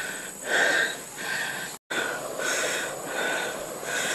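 A person breathing hard from climbing a very steep slope, quick breaths about two a second. The sound drops out briefly near the middle.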